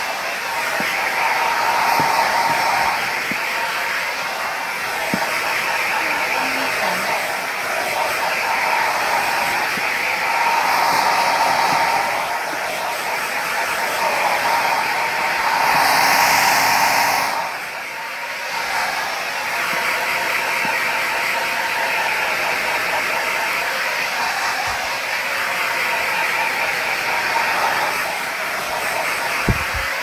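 Pink TESCOM high-airflow negative-ion hair dryer running continuously as it is moved over the hair, its rushing air and motor hum swelling and dipping. It is loudest a little past halfway, when the nozzle points straight at the microphone.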